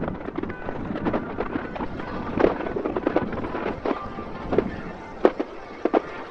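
Fireworks bursting in an irregular run of bangs and crackles, the sharpest a little past five seconds in.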